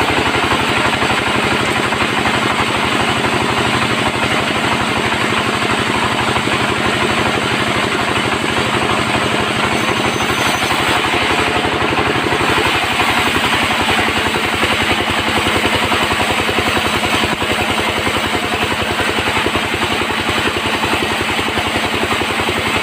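Sawmill bandsaw running steadily while sawing mahogany, with a fast even chugging pulse under the blade noise; the low hum shifts slightly in pitch about halfway through.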